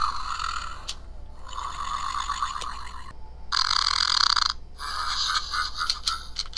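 WowWee Fingerlings Untamed T-Rex toy playing its electronic creature noises through its small built-in speaker: about four short bursts with brief gaps between them, among them a fart sound.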